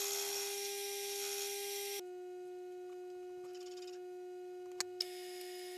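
Milling machine spindle running with a steady hum. For the first two seconds the end mill is cutting the metal of the stub axle, a hiss over the hum; then the cutting noise stops abruptly, leaving the spindle running on its own, with two short ticks near the end.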